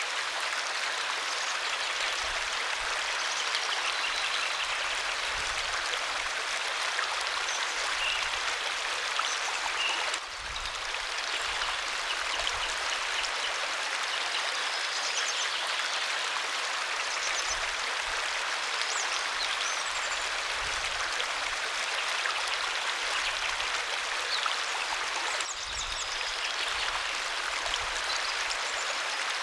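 Waterfall: a steady, dense rush of falling water that dips briefly twice.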